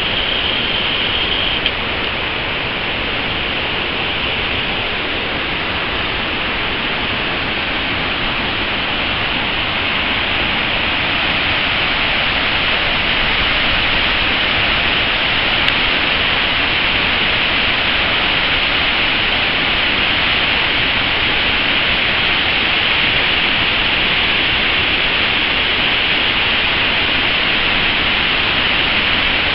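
Steady rush of a tall waterfall and its stream pouring over rocks, growing a little louder about a third of the way in.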